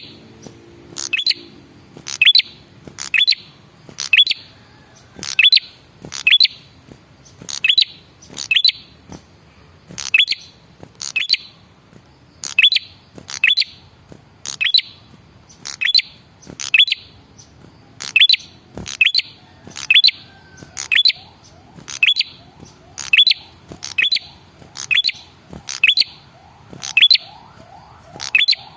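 Male prenjak kepala merah (red-headed prenjak) calling: a sharp, high call repeated about once a second, each a quick downward sweep.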